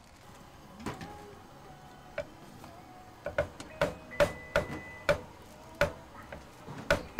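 Cleaver chopping braised food on a cutting board: about ten sharp chops, a few scattered at first, then coming faster from about three seconds in, each with a short ring.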